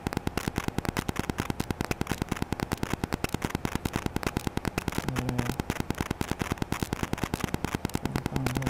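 Rapid, even electrical clicking, about ten ticks a second, from a GoPro camera's wifi interfering with an external microphone, which the uploader identifies as a known fault.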